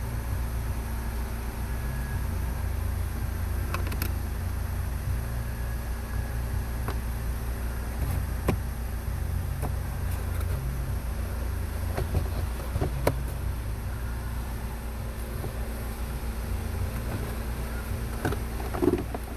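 Scattered plastic clicks and knocks from the cabin air filter housing and its door being handled, a few seconds apart, over a steady low rumble.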